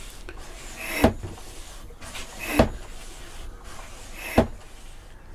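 Hand-operated vacuum oil extractor drawing warm engine oil up a copper pipe from the sump. Three rising swells about a second and a half apart, each ending sharply.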